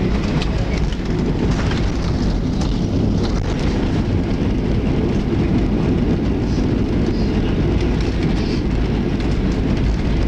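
Inside the cabin of a passenger jet rolling fast down the runway just after landing: a steady, heavy rumble of wheels and engines, with faint rattling.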